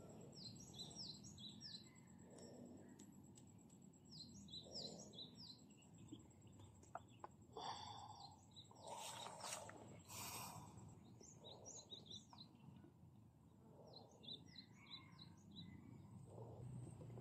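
A small bird singing faintly: four short phrases of quick, high chirping notes, each a few seconds apart, over a low background rumble. A couple of brief rustling noises fall about halfway through.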